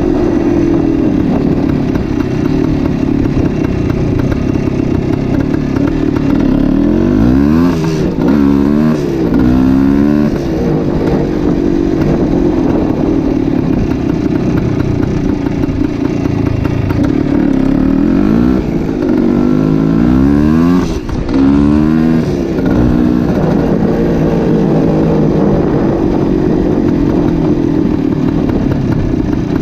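1972 Yamaha RT2 360's two-stroke single-cylinder engine running under way. Its revs rise and fall in several sweeps about a quarter of the way in and again past the middle, with a brief drop in loudness about two-thirds through.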